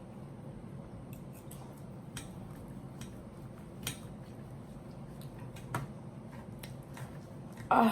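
Eating sounds: scattered light clicks and taps of cutlery and chewing over a steady low hum, with one short louder sound near the end.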